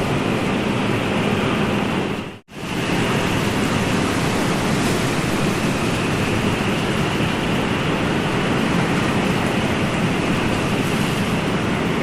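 Steady rushing noise of ocean surf, even in level throughout, with the sound cutting out for a moment about two and a half seconds in.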